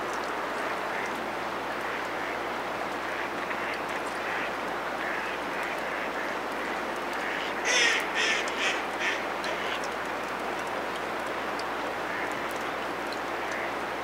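Mallards quacking: a quick run of about five quacks about eight seconds in, with a few faint calls before it, over a steady hiss.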